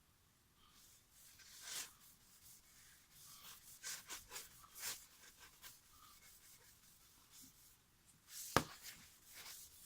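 Faint irregular rubbing and scratching of hands working on a wooden bass drum hoop, with one sharp knock near the end.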